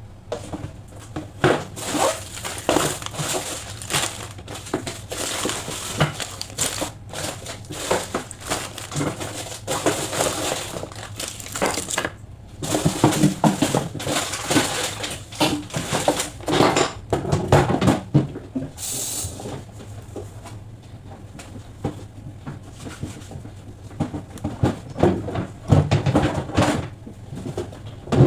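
Items being handled while a refrigerator is cleaned: irregular clatter and knocks of containers and shelves mixed with plastic crinkling, with a brief hiss about two-thirds through.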